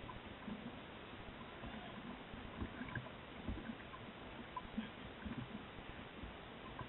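Faint lapping of choppy water close to the microphone, with irregular low knocks of small waves slapping.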